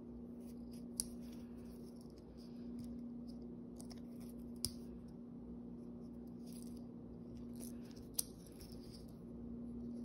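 A Leatherman Squirt PS4 keychain multitool being handled: its small blade snaps open and shut with three sharp clicks, about a second in, near the middle and near the end, and fingers rub softly on the metal between them. A steady low hum runs underneath.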